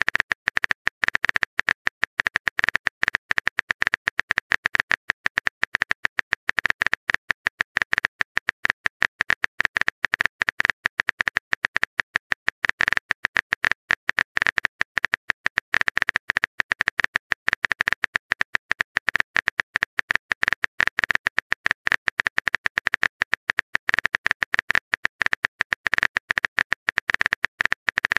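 Keyboard-typing sound effect of a texting-story app: quick, uneven key clicks, several a second, without a break.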